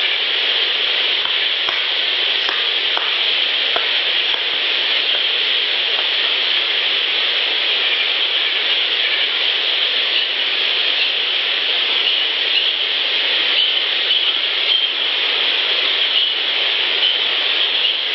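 Steady, dense crackling hiss from a boosted outdoor recorder clip, with a few faint ticks in the first few seconds.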